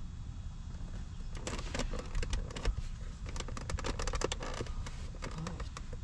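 Irregular small clicks and taps of hands handling a compact power inverter and its mounting screw against a truck's plastic rear-seat console. They are busiest from about a second and a half in until about five seconds in, over a low steady background rumble.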